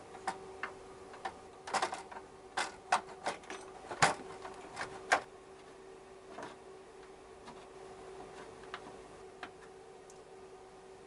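Sharp clicks and knocks of a Yamaha XJ900S's plastic tail panel and trim being handled and pressed into place, a quick run of them in the first five seconds with the loudest about four seconds in, then only a few faint ticks. A faint steady hum sits underneath.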